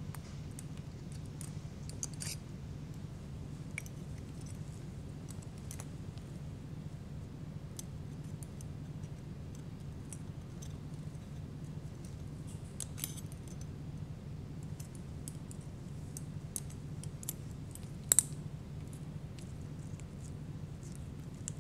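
Faint clicks and clinks of steel surgical instruments, needle holder and forceps, handled while a suture is placed and tied, over a steady low hum. One sharper click near the end.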